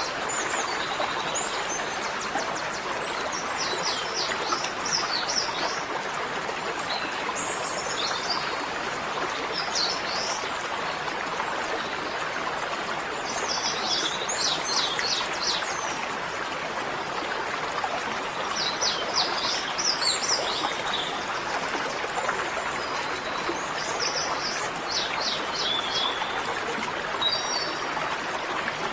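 Steady rushing background noise, like running water, with a small bird singing short high trilled phrases every few seconds.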